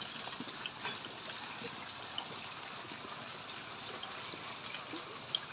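Running water trickling steadily, with a few faint ticks over it.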